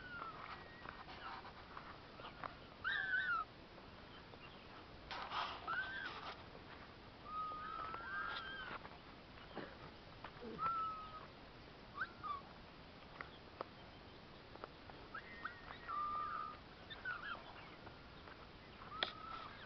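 Short high-pitched chirping calls, repeating on and off, with a brief burst of noise about five seconds in.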